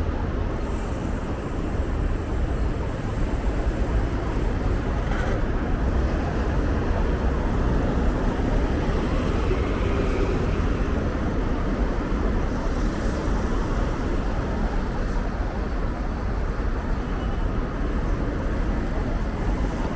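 Steady urban road traffic noise, an even rumble heaviest in the low end, with no clear single event standing out.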